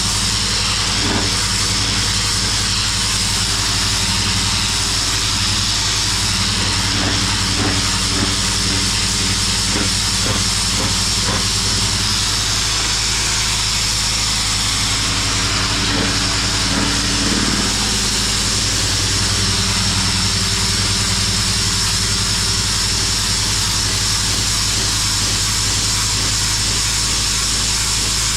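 Pressure washer running: a steady engine-like hum under the loud, constant hiss of the high-pressure water jet blasting concrete.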